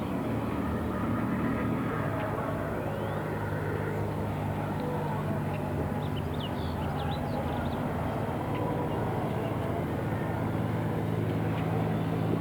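Outdoor town ambience: a steady low engine hum runs throughout, with a few faint bird chirps about halfway through.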